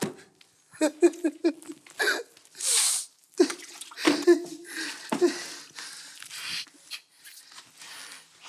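A man's short groans and huffing breaths while he cleans, with a sharp hissing burst about three seconds in. This is followed by a run of broom strokes swishing on a wooden floor.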